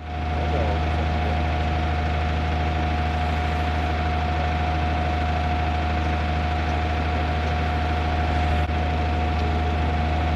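Fire engine's diesel engine running steadily: a constant low drone with a steady thin whine above it.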